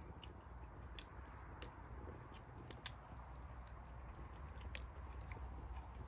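Wood campfire crackling with scattered sharp pops, the loudest near the end, over a low steady rumble, while a person chews a mouthful of food.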